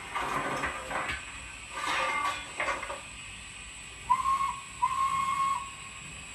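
Steam locomotive whistle blown twice, a short toot and then a longer one on the same steady pitch, after a few short bursts of hissing.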